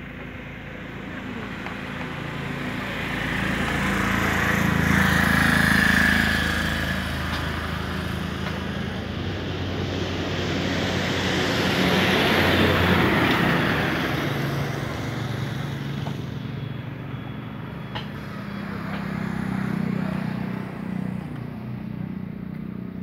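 Motor vehicles passing on a road. The sound swells and fades twice, loudest about five and twelve seconds in, with a smaller swell near the end, over a steady low engine hum.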